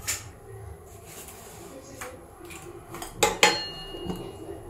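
Stainless steel kitchenware clinking: a few light clicks, then two sharp knocks a little over three seconds in, the second ringing briefly, as a steel oil container is picked up and handled.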